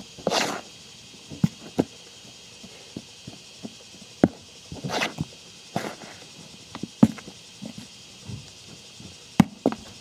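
A small hand scoop digging through loose rearing soil in a plastic rearing case: irregular sharp clicks and knocks of the scoop, with longer scraping, spilling rushes of soil about half a second in and about five seconds in.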